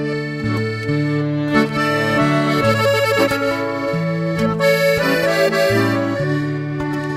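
Instrumental break in a recorded habanera song, led by accordion playing sustained chords over a bass line that changes note every second or so.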